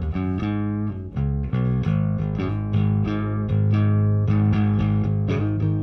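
Electric bass played through an MTI-era Ampeg SVT tube bass head on its second channel, preamp volume all the way up, treble and bass on 6, ultra high and ultra low off, into an Ampeg 8x10 cabinet. It plays a run of picked notes, quick changes at first, then longer held notes.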